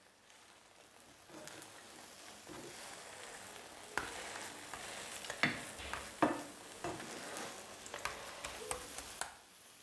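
Omelette frying in a nonstick pan, a steady sizzle that swells after about a second. Over it come about half a dozen sharp clicks and scrapes of a black slotted spatula against the pan as the omelette is folded over and pressed.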